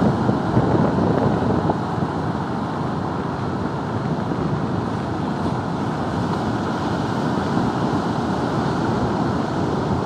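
Wind buffeting the microphone over steady surf from a rough, typhoon-driven sea breaking on a sand beach, with a stronger gust in the first couple of seconds.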